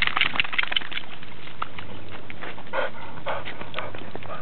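Six-month-old chocolate Labrador puppy panting, wet from a swim, with a few breathy pants near the middle. Water splashes and wet gravel clicking under her paws in the first second.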